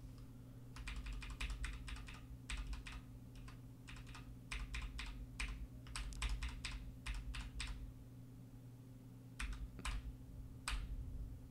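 Computer keyboard keystrokes in quick runs, then a short pause and a few more keystrokes near the end, over a faint steady low hum.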